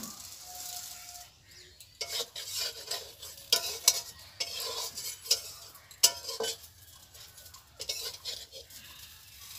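A metal spatula scraping and clanking against a steel wok as pitha is worked in the pan, with a faint sizzle of frying. The scraping starts about two seconds in and comes in irregular strokes.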